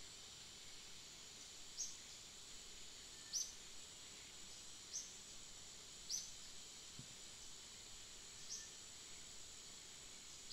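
Faint outdoor ambience: insects droning steadily and high, while a bird repeats a short, high, downward-sliding chirp five times, about every one to two seconds.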